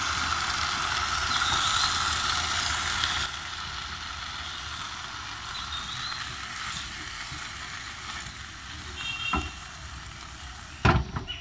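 Tomato purée sizzling as it hits a hot pan of fried liver, loudest for the first three seconds, then a quieter steady sizzle as it is stirred in with a silicone spatula. A sharp knock near the end.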